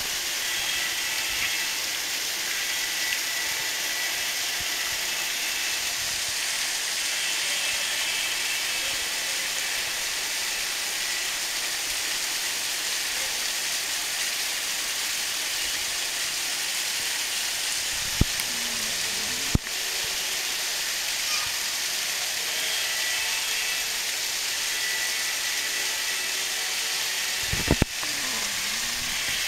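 Steady hiss of room ambience, with a few sharp clicks about two-thirds of the way in and again near the end.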